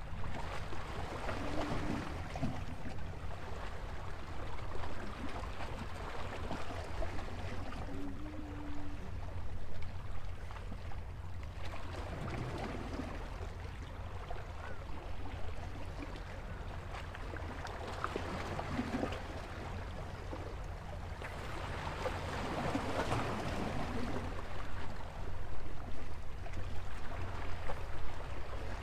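Small sea waves washing and lapping against a stone seawall, swelling and easing every few seconds, over a steady low rumble.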